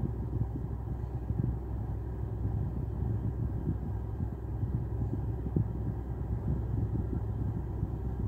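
Low, steady rumble of a car idling, heard from inside its cabin.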